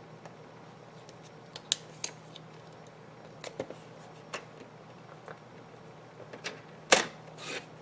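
Paper trimmer and cardstock being handled: scattered light taps and clicks as a cardstock strip is slid into place against the trimmer's guide, then a sharp click near the end as the trimmer's clear cutting arm comes down, followed by a short rasp.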